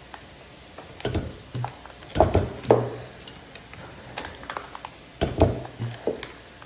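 Metal engine parts and tools clinking and clunking as they are handled, in a few irregular clusters, the loudest a little past two seconds in.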